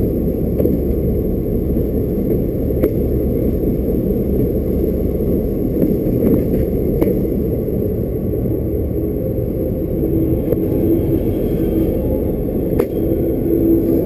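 Freight train rolling slowly through a yard during shunting: a steady low rumble of the locomotive and wheels, with a few sharp clicks as the wheels cross rail joints or points. A faint steady tone comes in over the last few seconds.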